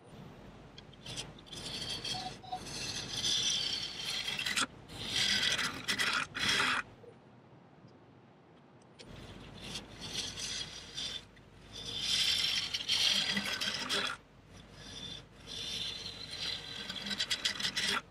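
Bowl gouge cutting a square blank of green, wet maple spinning on a wood lathe: a hissing scrape that comes in four passes of a few seconds each, with a lull about halfway through, over the steady low hum of the lathe.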